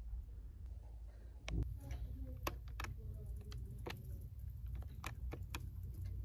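Plastic keys of a Sencor SEC 367/12 desk calculator clicking as a number is tapped in with one finger: about ten sharp presses at an uneven pace, over a steady low hum.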